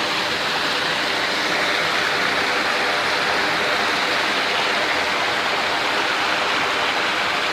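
Small alpine waterfall of icy snowmelt rushing and splashing down the rocks: a steady, even rushing of falling water.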